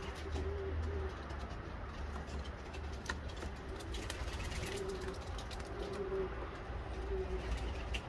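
Racing homer pigeons cooing: a string of short, low coos repeating about once a second, over a low steady rumble, with a few faint clicks near the middle.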